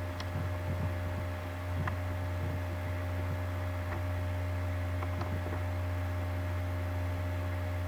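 Steady low electrical hum from the freshly energised test circuit, with a few faint clicks.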